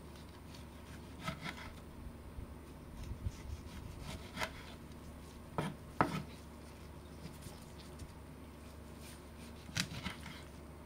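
Kitchen knife slicing tomatoes on a wooden cutting board: scattered soft knocks as the blade meets the board, the loudest about six seconds in and another cluster near the end.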